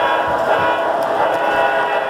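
O gauge model locomotive's sound system blowing a held horn chord, over the rumble of model train wheels rolling on the track.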